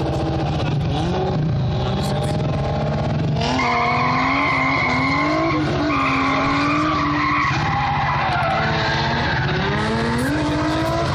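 A car's engine revving up and down as it is drifted through corners. Its tyres squeal from about three and a half seconds in for several seconds.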